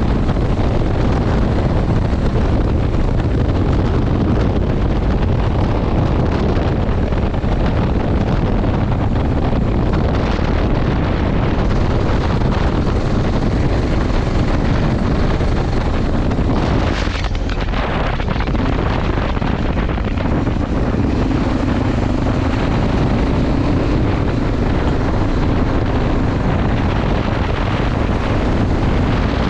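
Enduro motorcycle engine running under way, half buried in heavy wind buffeting on the microphone. About two-thirds of the way through, a steady engine hum comes through more clearly.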